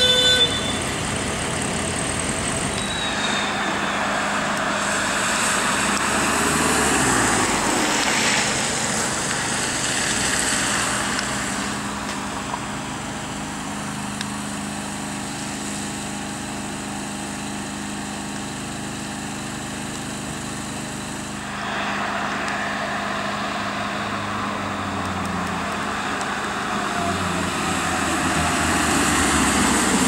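Fire brigade vans and light fire engines driving past on a wet road: engine noise and tyre hiss swell and fade as each passes, with the engine note falling as one goes by. A two-tone siren cuts off right at the start.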